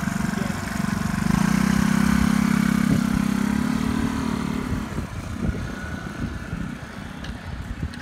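Small motor scooter's engine running close by, growing louder about a second in as the scooter pulls ahead, then fading away after about five seconds.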